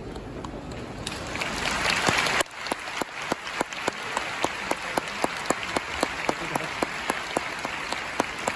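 Sumo arena audience applauding: the applause swells, then drops away suddenly about two and a half seconds in. Sharp claps follow in a steady beat, about three a second, over softer scattered clapping.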